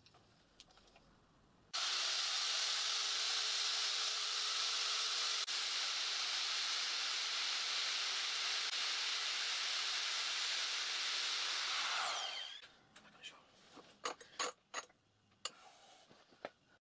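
A motor-driven workshop machine starts suddenly and runs with a steady high hiss. About twelve seconds in it is switched off and winds down with a falling whine. A few light, sharp metallic clicks follow.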